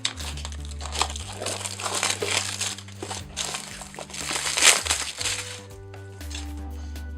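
Packaging of a trading-card box set being opened: crinkling and rustling for about five seconds, loudest near the middle and dying away well before the end, over background music with a steady bass line.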